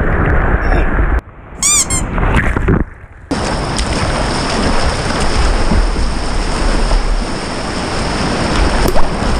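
Whitewater rushing over and around a surfboard, heard close up from a camera on the board, with wind buffeting the microphone. The rush cuts out briefly twice, and a short high-pitched wavering sound comes just before two seconds in.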